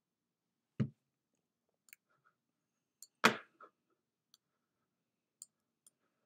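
Clicks and knocks from someone working at a computer desk: a low thump about a second in, a louder, sharper knock a little past three seconds, and a few faint ticks between.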